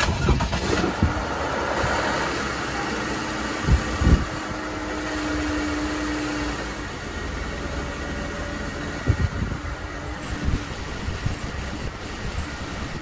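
The 3.6-litre V6 of a 2011 Jeep Grand Cherokee idling while the automatic transmission is shifted through its positions, a test run to push fluid through the freshly reconnected transmission cooler lines. A few short knocks sound over the steady engine noise, around four seconds in and again near nine seconds.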